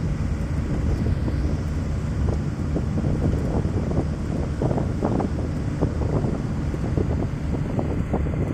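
Wind buffeting the microphone over the steady low rumble of a moving vehicle, with irregular small knocks.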